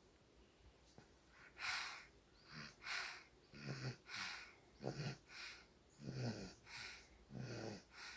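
Soft snoring in sleep: after a faint start, quick regular breaths begin about a second and a half in, each a breathy hiss followed by a low, rattly snore, roughly one breath every second and a half.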